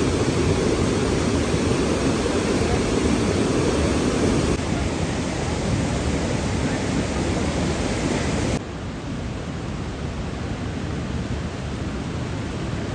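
Flash-flooded Sainj river rushing past, a steady heavy noise of water. The sound shifts abruptly about four and a half seconds in and drops in level about eight and a half seconds in.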